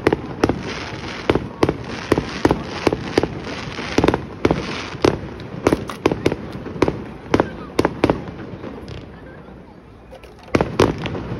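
Aerial fireworks bursting: a rapid, irregular series of sharp bangs with crackling between them. The bangs thin out into a short lull about nine seconds in, then start again near the end.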